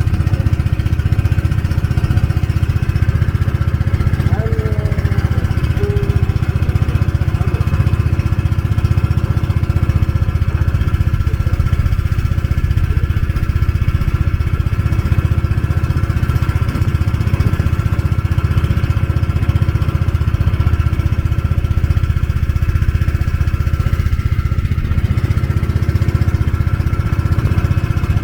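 Engine of a small river-crossing passenger boat running steadily at a constant speed.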